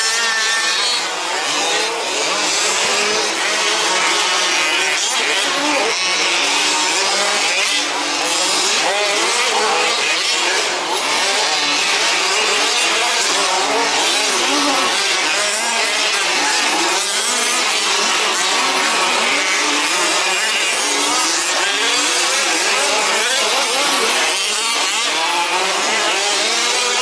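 Several 1/5-scale RC off-road trucks' small two-stroke petrol engines racing together, their pitches overlapping and rising and falling as the throttles open and close.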